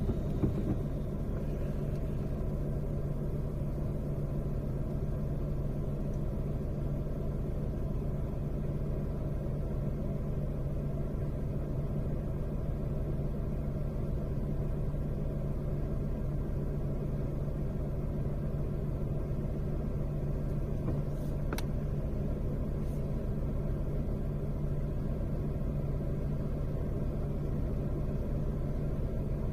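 A car driving in traffic makes a steady low rumble, with one sharp click about two-thirds of the way through.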